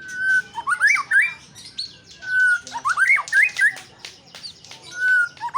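White-rumped shama singing: a held whistled note followed by a quick run of rising and falling whistles. The phrase is repeated three times, about two and a half seconds apart.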